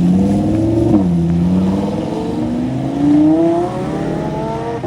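A car accelerating hard away: the engine's pitch climbs, drops sharply with an upshift about a second in, then climbs again through the next gear before falling off near the end.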